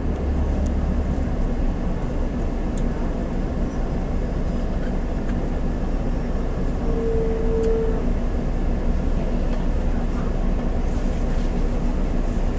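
Bus engine running, heard from inside the passenger cabin as a steady low rumble. A single short beep sounds about seven seconds in.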